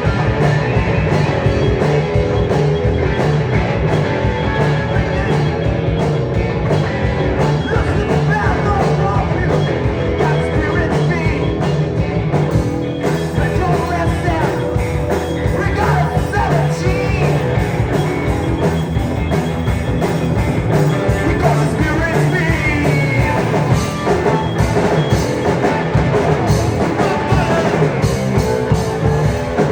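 Live rock band playing loud, steady rock music with electric guitar and drums.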